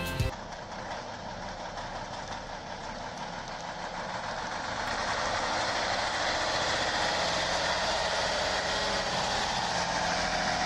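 An engine running steadily, growing louder partway through and then holding.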